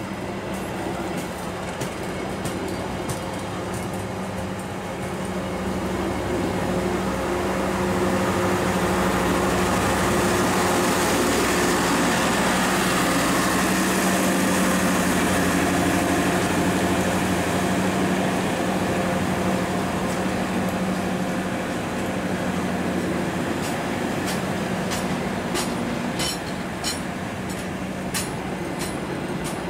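KAI passenger train coaches rolling past close by: a steady rumble and hum of steel wheels on rail, loudest midway, with a run of sharp clicks from the wheels crossing rail joints in the last few seconds.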